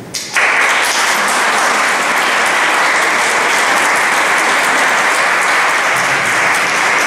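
Audience applauding: the clapping breaks out suddenly just after the start and holds steady and loud.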